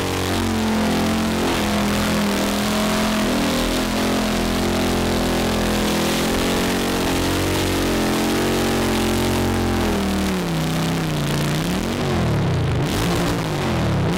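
Triumph Bonneville Bobber's parallel-twin engine running hard under a test ride, revs rising and falling steadily, then dropping and blipped quickly up and down several times near the end.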